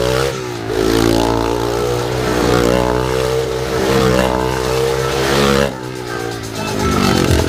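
Small motorcycle engine revving inside a steel globe cage, its pitch rising and falling over and over as the rider loops. The revs drop away briefly near the start and again about six seconds in.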